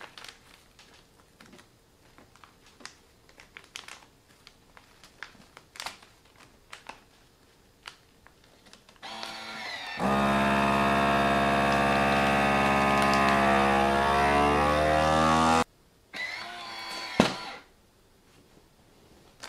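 FoodSaver vacuum sealer: light plastic-bag rustling as the bag is set in the machine, then the vacuum pump running loudly for about six seconds, its pitch creeping up as the air is drawn out of the bag, before cutting off suddenly. A shorter, quieter run and a click follow about a second later as the seal finishes.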